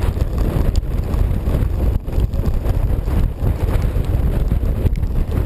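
Wind buffeting the microphone of a moving vehicle's camera, a steady rough rumble over the low running of the vehicle.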